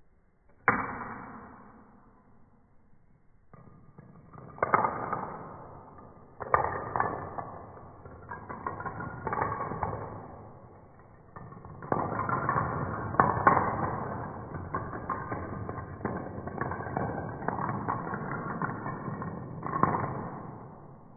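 A chain of toy dominoes toppling one after another onto a hard floor: rapid, rattling clicks that start with a sharp clack about a second in, pause and pick up again several times, then run almost without a break until they die away near the end.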